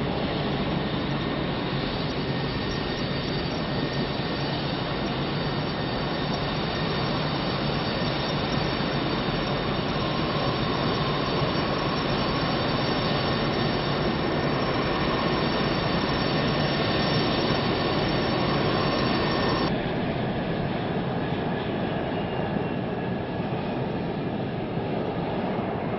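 Jet engine running steadily: a continuous rushing noise with thin high whining tones. About twenty seconds in it switches abruptly to a duller recording of the same kind of noise.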